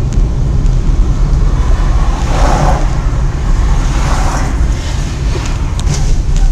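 Car driving, heard through a dashcam mic inside the cabin: a loud, steady low rumble of road and engine noise with a rushing, wind-like hiss that swells twice.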